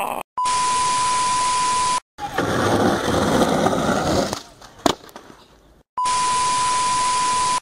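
Video-glitch transition effect: hissing TV static with a steady 1 kHz test tone, heard twice for just under two seconds each, starting and stopping abruptly. Between the two comes a stretch of loud rushing noise and a single sharp click.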